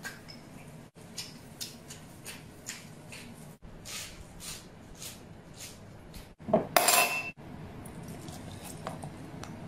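Chopsticks clicking against a small ceramic bowl while eating, a string of short light clicks. About six and a half seconds in comes a louder clatter with a brief ringing clink, then a soft steady hiss as beer is poured from a bottle into a glass.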